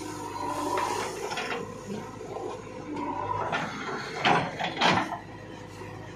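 JCB 3DX backhoe loader's diesel engine running steadily as it works its hydraulics, with a few metallic knocks from the backhoe bucket and arm; two sharp clanks about four and five seconds in are the loudest sounds.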